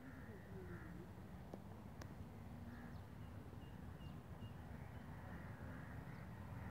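Crows cawing faintly a few times over a steady low rumble of wind on the microphone. A small bird gives a short run of thin high peeps midway, and there is one sharp click about two seconds in.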